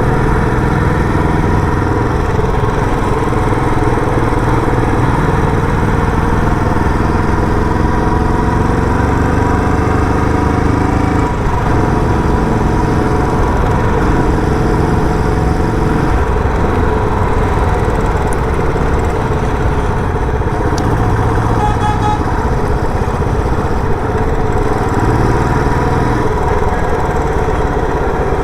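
Royal Enfield Bullet 350's single-cylinder engine running through its stock silencer under way, its pitch shifting up and down several times as the throttle and gears change.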